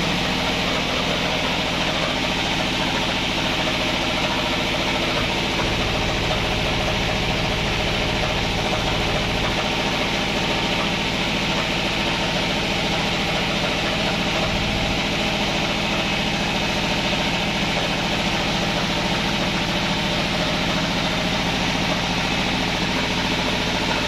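An engine running steadily at an even speed, with no change in pitch or loudness.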